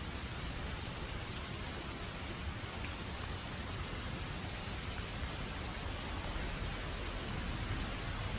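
Waterfall: a steady, even rush of falling water, growing a little louder toward the end.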